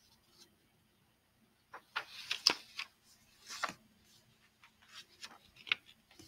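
A man's soft breaths and small mouth clicks during a quiet pause, over a faint steady hum: a cluster of clicks and breathy hisses about two seconds in, another soft breath a little later and a single sharp click near the end.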